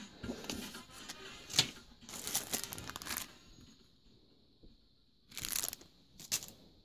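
Clear plastic packaging crinkling and rustling as it is handled, in a run of short bursts, quiet for a couple of seconds past the middle, then two brief crinkles near the end.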